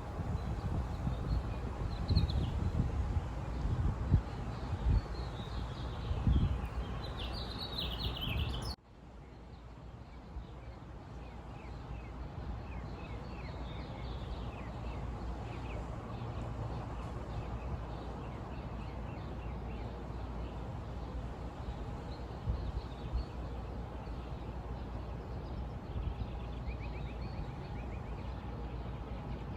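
Small birds chirping over steady outdoor background noise, with a louder low rumble in the first part. The sound cuts abruptly about nine seconds in to a quieter stretch where faint chirps continue.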